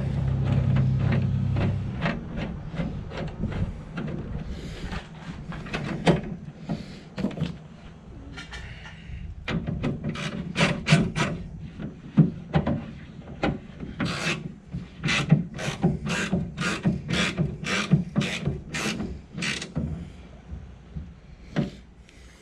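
Hand ratchet wrench clicking in repeated strokes as a bolt on the tailgate hinge is tightened, the clicks coming about two a second in the second half.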